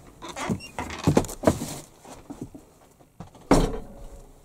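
Footsteps and door handling as someone walks in through a wooden door and past a curtain: a few scattered knocks and clicks, then a heavier thump about three and a half seconds in.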